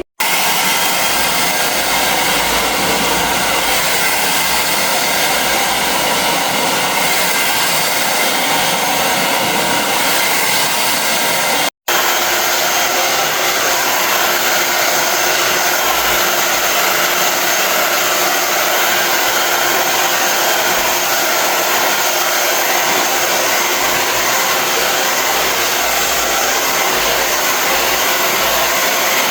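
Handheld hair dryer blowing steadily, a loud even rush of air with a faint fan whine. It cuts out for an instant about twelve seconds in and comes straight back.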